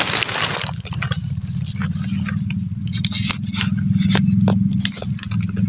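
A small metal spade scrapes and digs in forest soil and dry leaves, making a scatter of short clicks and scrapes over a steady low rumble.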